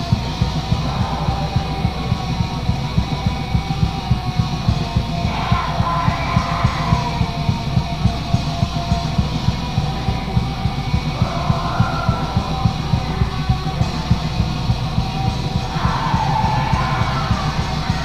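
Heavy metal demo recording off cassette: distorted guitar and drums keeping a steady pounding beat, with harsh yelled vocals coming in three times, about five, eleven and sixteen seconds in.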